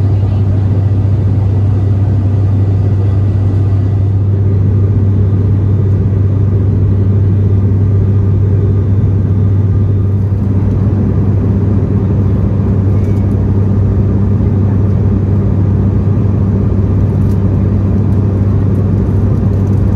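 Cabin noise of an ATR 72-600 turboprop in cruise: a loud, steady, deep drone from its propellers and engines that holds one pitch throughout, over an even rush of air noise.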